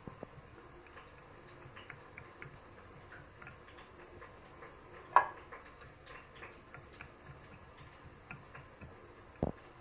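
A metal fork poking and tapping through raw chicken onto a glass plate: scattered small clicks, with a sharp, louder click about five seconds in and another near the end.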